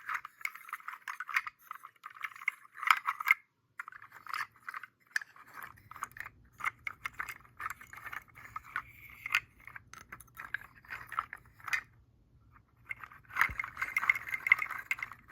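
Seed shell rattle shaken in bursts: many dry shells clicking and clattering together, with short pauses between shakes and a pause of about a second near the end.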